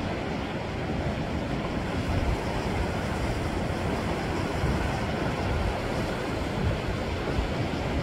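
Sea surf washing steadily against a rocky shore, a continuous rush of water, with wind buffeting the microphone.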